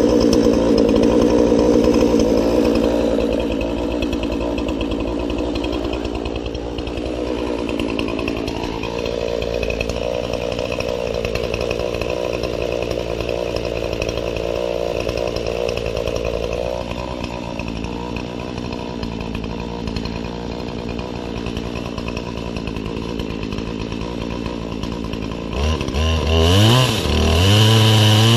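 Poulan 20-inch two-stroke gasoline chainsaw, fitted to an Alaskan chainsaw mill, running steadily at a low speed; about 26 seconds in it is revved up and held at full throttle, ready for the milling cut.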